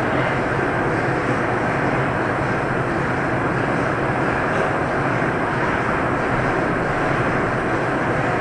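Steady mechanical whirring drone of the Skyrail's overhead track machinery as a suspended car is carried around the station's turnaround loop, with a constant low hum underneath.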